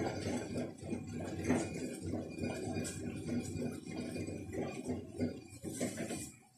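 Ugali thickening in a small metal pot as it is stirred and pressed, giving irregular scraping and knocking against the pot.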